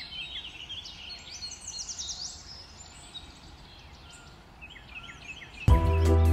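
Small birds chirping and trilling in quick, short calls over a faint steady hiss. Near the end, loud music with a heavy bass cuts in abruptly.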